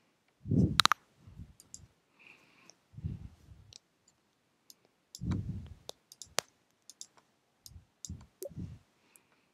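Computer mouse clicks mixed with short soft knocks of pieces being moved on an online chessboard, scattered irregularly as chess puzzle moves are played.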